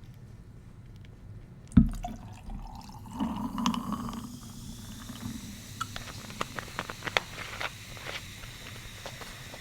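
A sharp thump, then Vernors ginger ale pouring over ice for about two seconds, followed by scattered small crackles and pops of fizz and ice.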